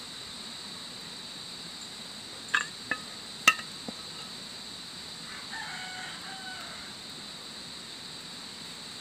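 A rooster crows faintly about halfway through, one call of about a second and a half, over a steady high insect drone. Just before it come a few sharp utensil clacks, the loudest at about three and a half seconds.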